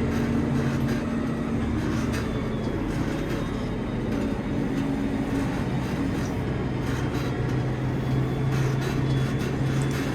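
Tractor engine running steadily while driving through a field, heard from inside the cab, its note shifting a little partway through. Light clicks and rattles sound over it.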